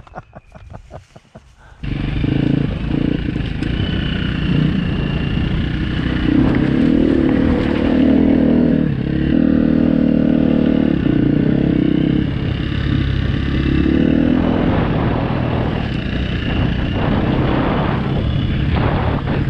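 Dirt bike engine, ticking over quietly at first, then loud from about two seconds in as the bike is ridden along a dirt trail, the engine note rising and falling with the throttle.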